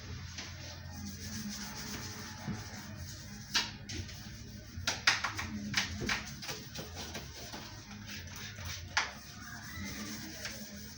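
Scrubbing and rubbing on the fridge's surfaces, with a handful of sharp clicks and knocks, loudest in the middle.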